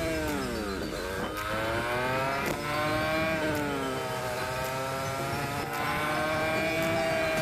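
Honda RS150R's single-cylinder four-stroke engine running under way: the revs fall sharply about a second in, climb again, ease off around four seconds and climb once more, then start falling right at the end.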